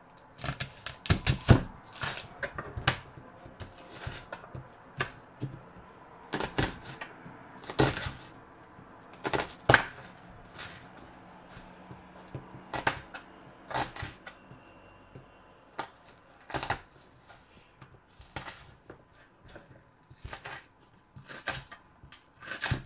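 Kitchen knife cutting an onion on a chopping board: irregular knocks of the blade striking the board, sometimes several in quick succession, then short pauses.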